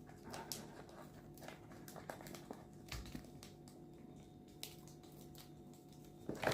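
Pearl cockatiel moving and nibbling: faint, scattered light clicks and scratches over a steady low hum.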